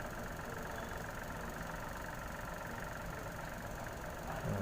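Steady low background rumble, even throughout, with no distinct strokes or tones.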